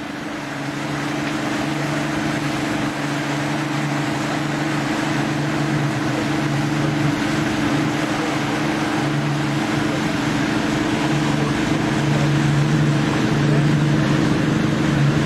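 Outboard motor of a small boat running steadily at speed, a constant engine hum that grows a little louder over the first couple of seconds, over the rush of water and wind.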